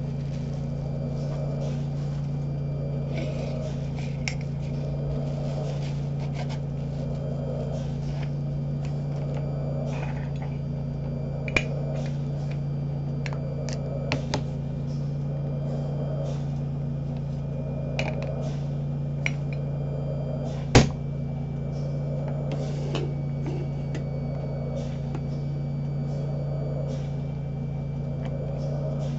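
Steady low machine hum with a soft whoosh rising and falling about every two seconds, typical of a home mechanical ventilator cycling. Scattered light clicks and taps come from items being handled, the sharpest about 21 seconds in.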